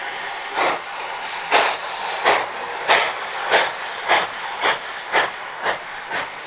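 Narrow-gauge steam locomotive starting a train: sharp exhaust chuffs from the stack, about ten of them, coming faster as it picks up speed over a fading hiss of steam.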